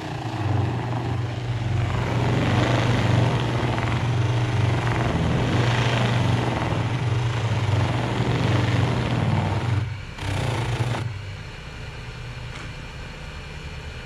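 Small lathe spinning a white buffing wheel, with a low motor hum and a rushing friction noise while it is worked by hand. About eleven seconds in the sound drops to a quieter, steady whir of the wheel spinning free.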